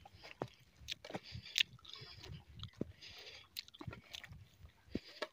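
Footsteps crunching and scuffing over stony, grassy ground at an uneven walking pace, with sharp clicks of stones underfoot.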